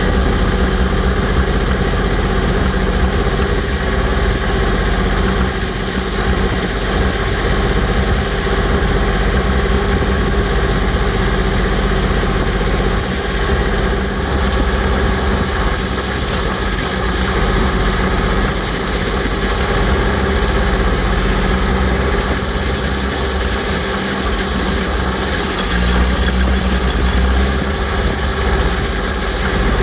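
The engine of a truck-mounted drill rig's deck power unit running steadily, with a brief heavier low rumble near the end.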